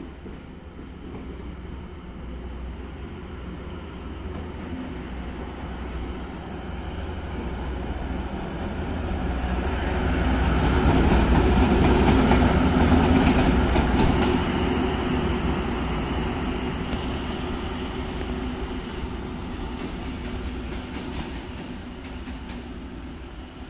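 A PKP Cargo locomotive passing along the platform track. Its low running drone and the noise of wheels on rail swell to a peak about halfway, with a few clicks at the loudest point, then fade as it draws away.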